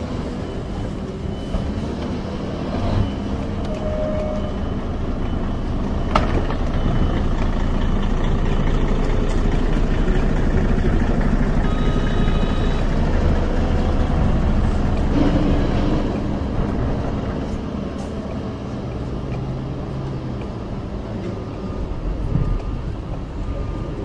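Motor vehicle engines running with a steady low rumble that swells for several seconds in the middle, with a few clicks and a brief beep-like tone about halfway through.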